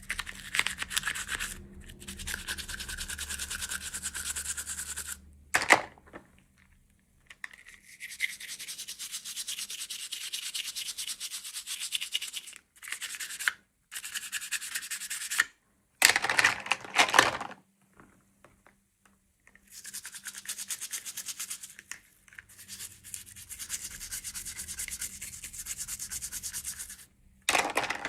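Toy packaging being handled and unboxed: scratchy rubbing and scraping in several stretches, with a few sharper louder scrapes, broken by abrupt silent gaps.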